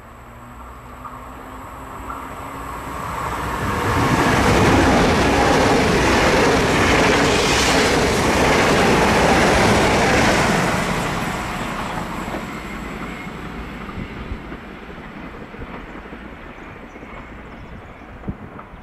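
Italo AGV high-speed electric train running through the station at speed. A rushing noise swells over about two seconds, stays loud for about seven seconds as the train passes, then fades away.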